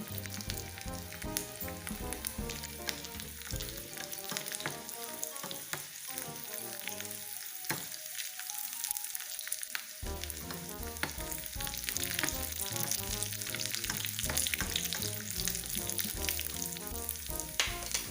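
Tadka of garlic, cumin, asafoetida and broken whole dried red chillies sizzling and crackling in hot ghee in a small pan. Background music plays underneath and drops out for a few seconds midway.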